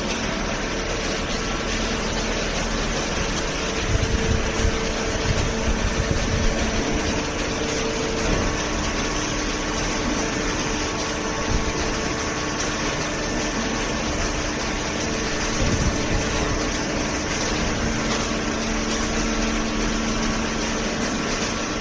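Hydraulic vertical cardboard baler running, its pump and motor giving a steady mechanical hum with a few tones that change partway through, and some low bumps.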